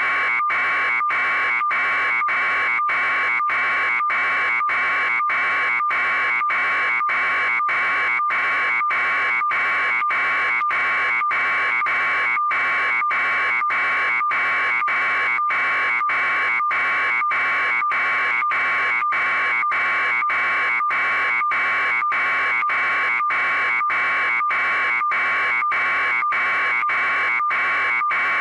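Steady electronic buzz with a constant tone, cut by very brief dropouts at short, even intervals.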